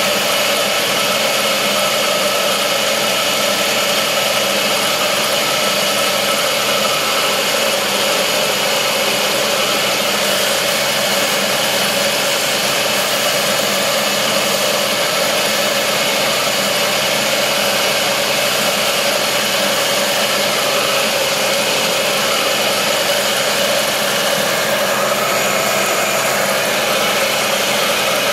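Homemade belt-driven wood lathe running at a steady speed, turning a long wooden spindle; its motor and belt drive give a constant, unbroken hum.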